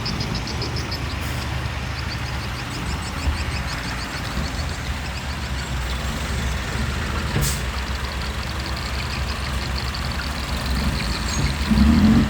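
Heavy diesel earthmoving machinery running steadily with a low rumble, overlaid by a fast, even run of high ticking for much of the time. The rumble swells near the end.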